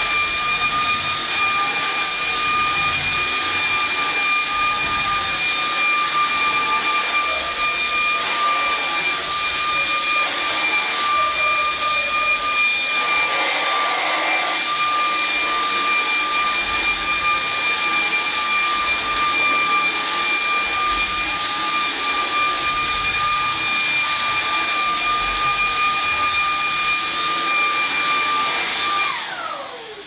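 Cordless stick vacuum running steadily with a high motor whine over a rushing hiss while its lit brush head is pushed over a rug. About a second before the end it is switched off, and the whine falls in pitch and fades as the motor spins down.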